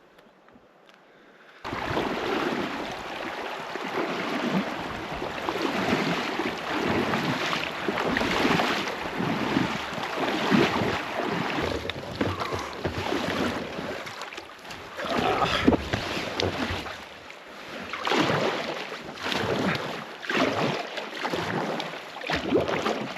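Water splashing and rushing around a kayak, with wind buffeting the microphone; the noise swells and eases every second or two. It starts suddenly after a short near-silent gap.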